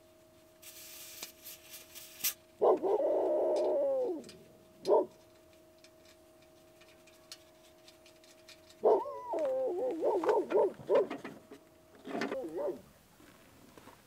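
A dog whining in wavering, pitched cries: one long cry about three seconds in, a short one at five seconds, then a run of rising and falling whines from about nine to thirteen seconds. A faint steady hum lies under it, with a brief hiss near the start.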